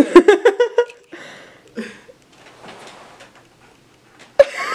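A young woman's voice for about the first second, then faint rustling, and two short sharp clicks near the end with a little more voice between them.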